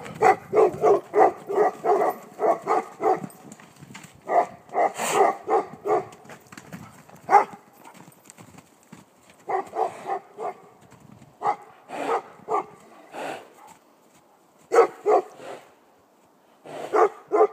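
Dog barking in quick runs of short barks, about five a second, broken by pauses, with single barks here and there.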